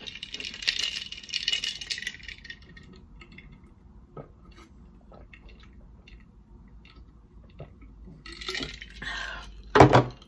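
A glass jar of water clinks as it is lifted in the first couple of seconds. Quiet gulping follows while it is drunk from, with faint clicks. Near the end comes a short loud sound from the mouth.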